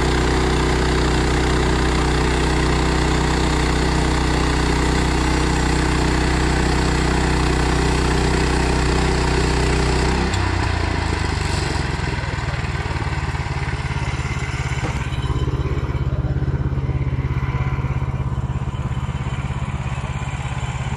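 Portable band sawmill's engine running steadily at speed while the saw head is pushed along a log, then dropping to a lower idle about ten seconds in.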